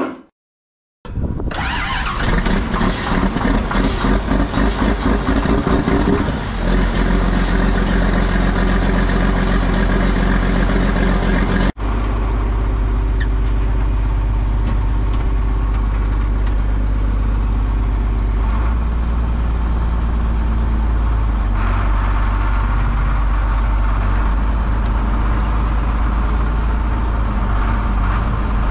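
Large diesel tractor engine running, uneven and pulsing for the first few seconds, then settling into a steady run.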